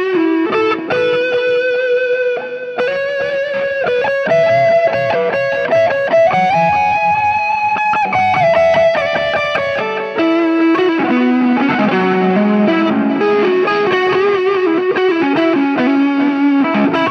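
Electric guitar played through a Soldano SLO 30W Mini tube amp head driven by an overdrive pedal, giving a distorted lead tone. It plays a slow line of held notes that climb in pitch with slides, then about ten seconds in a busier phrase that drops lower.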